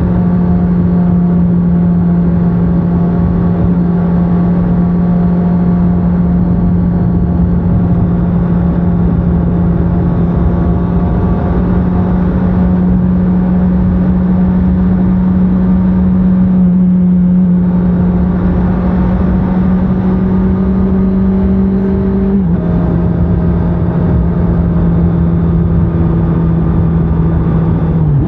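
2024 Honda CBR650R's inline-four engine on its stock exhaust, running under way at a fairly steady engine speed. Its pitch creeps up slowly, steps down slightly about two-thirds of the way through, and dips and recovers quickly at the very end.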